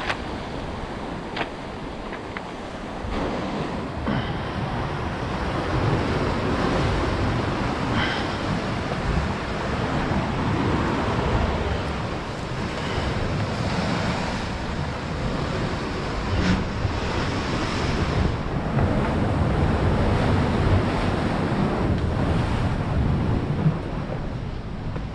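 Sea waves surging and washing ashore, with wind buffeting the microphone in a low rumble; the surf swells louder about four seconds in.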